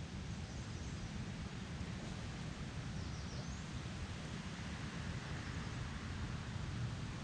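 Steady outdoor ambience: a constant low rumble, with a few faint, short high bird chirps about half a second and three seconds in.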